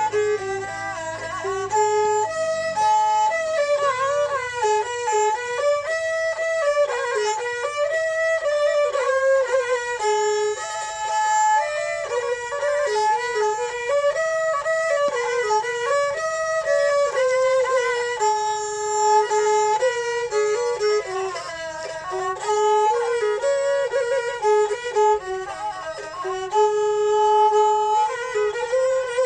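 Thai bowed fiddles (so) playing a mahori folk melody together, with sliding notes. A low steady drone underneath fades out in the first few seconds.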